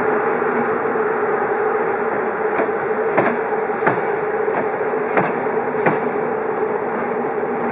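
Passenger coaches of an arriving train rolling slowly past on the track, a steady rumble with a hum. The wheels clack sharply over rail joints, the clacks coming in pairs.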